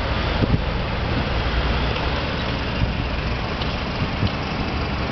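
Steady city street traffic noise: cars driving past on the road beside the cycle path, a continuous rumble.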